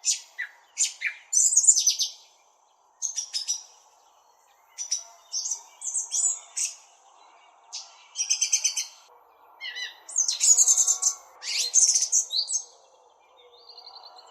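A small bird chirping close up: short high chirps and quick trills in bursts, with brief pauses between them.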